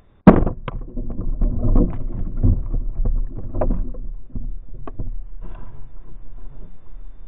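A Glock 19 fires one 9mm round from inside a watermelon: a single sharp report about a third of a second in, muffled by the melon, which the shooter likened to shooting a .22. After it comes several seconds of low rumble and crackle from wind on the close action-camera microphone.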